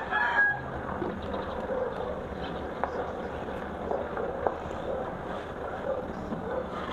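Steady outdoor background noise with a low hum and a few faint ticks. A rooster's crow dies away in the first half second.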